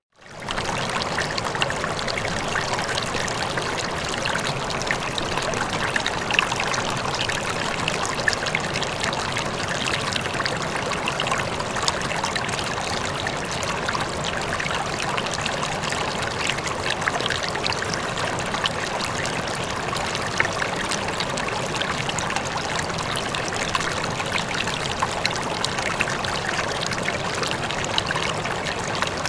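A river flowing steadily, with an even rush of water and small trickling splashes. The sound drops out for a moment at the very start, then resumes.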